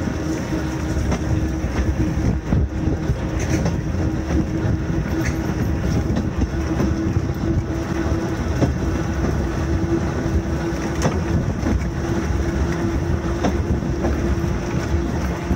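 Volk's Electric Railway two-axle narrow-gauge car running along the track: a steady hum over the rumble of the wheels on the rails, with wheels clicking over rail joints now and then, and wind on the microphone.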